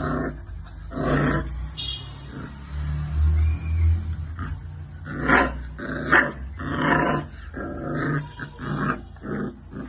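Saint Bernard puppy growling and yipping in about a dozen short, irregular bursts, over a steady low rumble.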